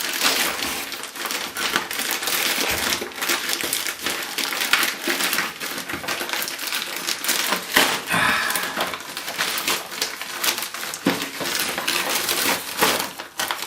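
Packaging bag being handled and torn open, with continuous crinkling and rustling and many small crackles.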